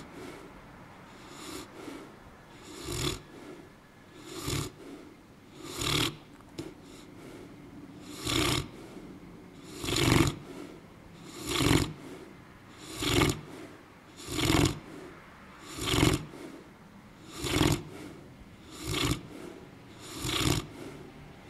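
A dog snoring in its sleep, one loud snore about every second and a half in a steady rhythm, the first few fainter than the rest.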